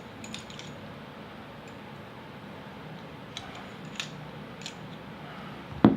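Light clicks and scrapes of a cleaning rod with a patch being worked through a Glock 19 pistol barrel, with a sharper click near the end.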